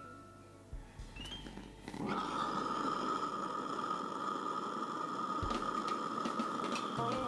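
Butane gas burner of an Accucraft Ruby #5 live steam locomotive being lit: a few faint clicks, then about two seconds in the gas comes on with a sudden steady hiss carrying a high tone, the flame now burning in the boiler's flue.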